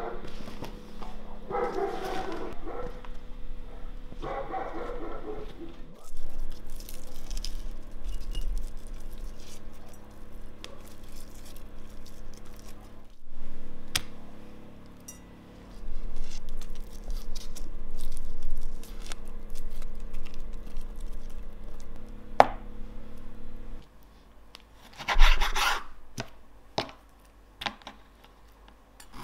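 Kitchen prep on a bamboo cutting board: roasted peppers being handled and rubbed, with scattered small clicks, then a knife cutting through soft roasted red pepper and knocking on the board near the end. A steady low hum underlies most of it and stops shortly before the cutting.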